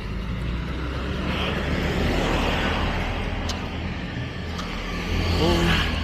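Street traffic: a car going by, its engine and tyre noise swelling about two to three seconds in over a steady low rumble.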